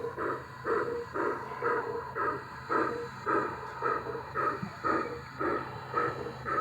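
Bachmann K27 model steam locomotive running, its sound unit giving a steady chuff about twice a second over the low hum of its motor and gearing.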